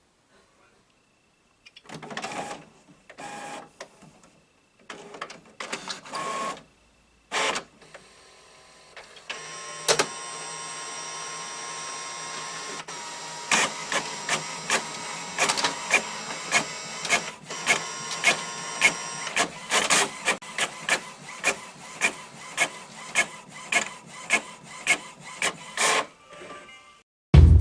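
HP OfficeJet 6968 inkjet printer running its mechanism after the cartridges are reinstalled and the door closed: several short motor whirs, then a steady run with regular clicks about twice a second as the carriage and paper feed work.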